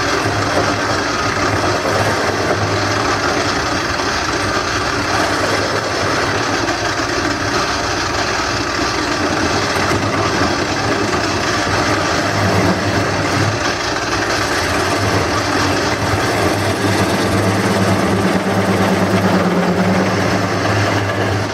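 A wood lathe running while a turning gouge cuts into the spinning wooden bowl blank to hollow out its centre. A steady motor hum sits under a continuous rough cutting noise, and a higher hum joins for a few seconds late on.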